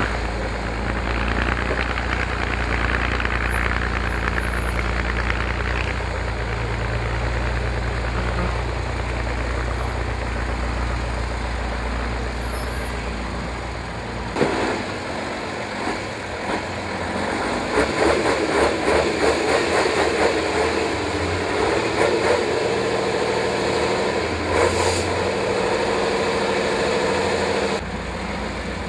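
Praga V3S six-wheel trial truck's engine running under load on a steep sandy climb, steady at first, then after a cut rising and falling in quick uneven surges for several seconds.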